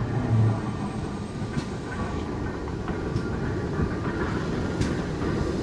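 GWR steam locomotive 4079 Pendennis Castle rolling slowly past tender-first, with a faint click from the wheels about every second and a half. Wind rumbles on the microphone.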